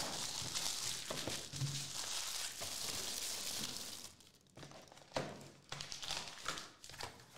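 Cellophane shrink wrap crinkling as it is torn and stripped off a small cardboard trading-card box, for about the first four seconds. Then quieter, separate scrapes and taps of cardboard as the box is set down and its lid opened.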